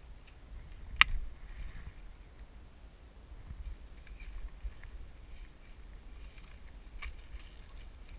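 Low wind rumble on the microphone, with a sharp crack about a second in and a fainter one about seven seconds in.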